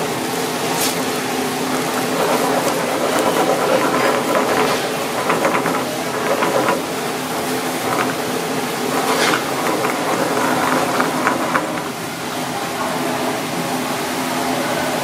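Egg sizzling in a nonstick frying pan on a gas burner, with wooden chopsticks scraping and tapping against the pan in scattered short clicks as the egg is stirred and scrambled. A steady mechanical hum runs underneath.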